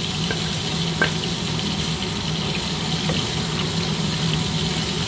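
Liver stew simmering in a pan with a steady hiss, over a low steady hum, with a light tap about a second in.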